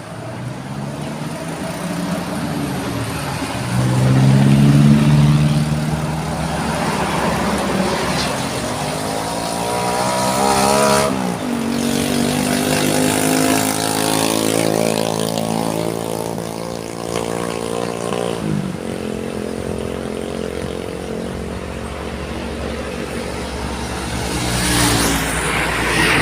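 Road vehicle engines running and accelerating past. Their pitch climbs, drops sharply about eleven seconds in, holds steady, and falls away again past the eighteen-second mark.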